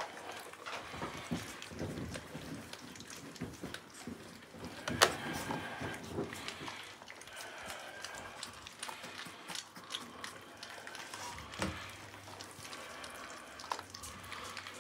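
Three-week-old puppies lapping and smacking at soft puppy-food mush in a plastic tray, eating solid food for the first time: irregular wet clicks and slurps, with one louder click about five seconds in.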